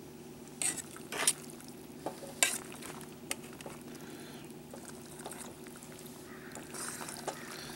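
A fork stirring and tossing pasta with meatballs and tomato sauce in a stainless steel bowl: wet mixing with several sharp clinks of the fork against the bowl in the first few seconds.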